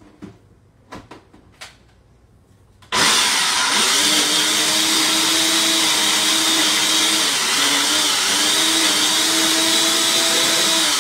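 A few light clicks, then about three seconds in a blender switches on and runs loud and steady, blending a thick mixture of pumpkin puree, ripe banana, honey and cinnamon. The motor's hum dips briefly a few times as it works through the mixture.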